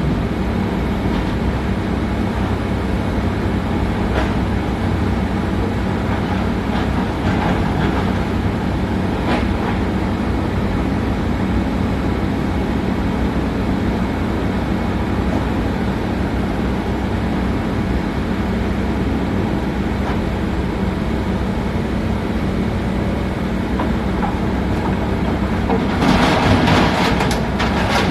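Komatsu PC200-7 excavator's diesel engine running steadily under working load, with a few light knocks. Near the end there is a louder noisy burst lasting about a second and a half.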